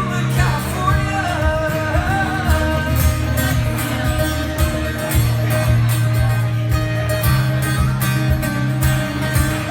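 Live music: a guitar solo with bent, wavering notes in the first couple of seconds, over a steady beat and bass line.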